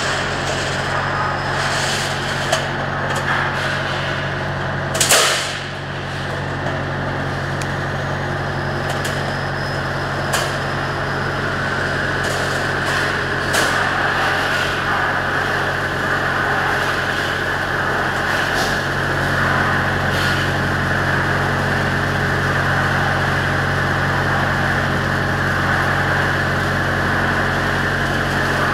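Light-steel roll-forming machine running with a steady motor hum, broken by a few sharp metallic clacks, the loudest about five seconds in.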